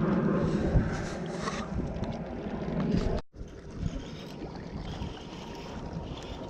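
Wind rumbling on the microphone over boat and water noise. It breaks off abruptly about three seconds in and goes on quieter after.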